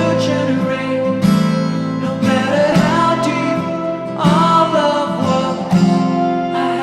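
Background music: a strummed acoustic guitar with a singing voice.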